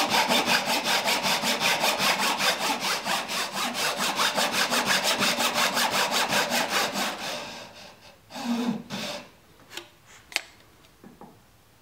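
Thin Japanese pull saw cutting a dovetail into the end of a wooden board, its blade riding against a magnetic saw guide. Fast, even back-and-forth strokes stop about seven seconds in, followed by a few light knocks and a sharp click.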